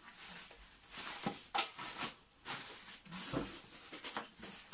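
Plastic packaging rustling and crinkling in irregular bursts as an item is handled and unwrapped.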